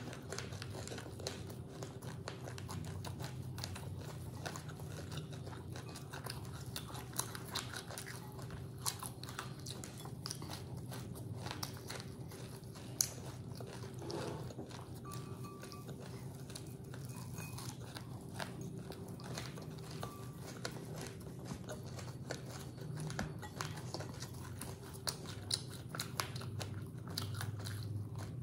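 Crunchy chewing of mouthfuls of puffed rice (muri) mixed with grated coconut: many small crisp cracks run on without a break. A faint steady hum lies underneath.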